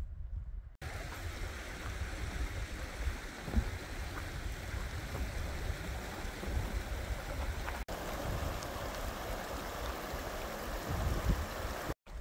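Shallow mountain stream running over stones: a steady rushing of water with a low rumble beneath. The sound breaks off for a moment about a second in and again near eight seconds, where the footage is cut.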